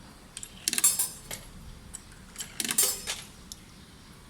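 Coins clinking as they are fed into a vending machine's coin slot: two short runs of metallic clicks and rattles, about a second in and again about two seconds later.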